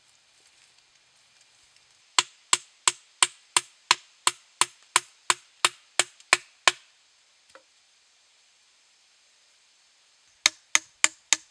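Hammer blows at a steady pace of about three a second: a run of some fourteen sharp strikes, a pause, then a second, slightly quicker run starting near the end.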